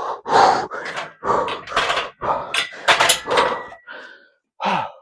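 Quick, hard breaths and clanks of a loaded barbell during a heavy back-squat set, with a brief metallic ring near the middle. A short falling grunt comes near the end.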